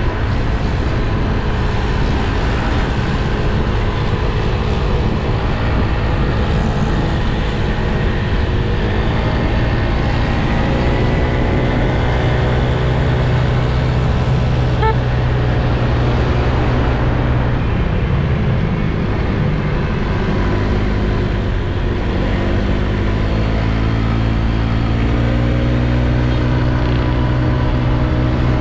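Scooter engine running under way on the road, its pitch climbing as it accelerates, about a third of the way in and again over the last several seconds, over a steady rush of wind and road noise.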